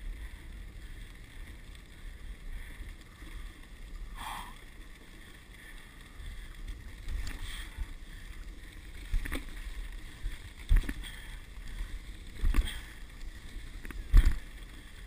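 Dog sled running over a snow trail: the runners hiss steadily, with about four sharp knocks and jolts of the sled in the second half.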